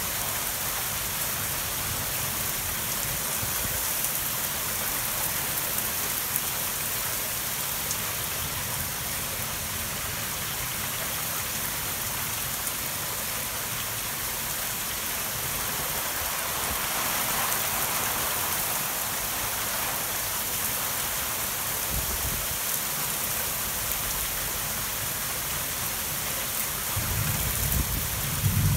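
Torrential thunderstorm rain: a steady, heavy hiss of rain pouring onto roofs, lawns and pavement. Near the end a low rumble of thunder builds.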